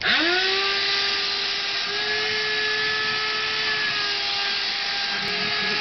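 Red cordless handheld vacuum switched on, its motor spinning up within half a second, then running steadily with a whine over the hiss of air as its nozzle is drawn through a cat's fur to pick up shed hair.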